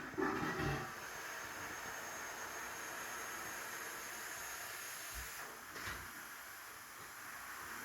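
Steady background hiss, with a short low pitched sound in the first second and two faint knocks about five and six seconds in.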